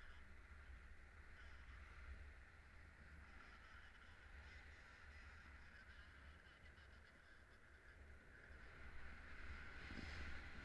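Faint wind noise on the microphone in paraglider flight: a low rumble with a steady hiss, growing a little louder near the end.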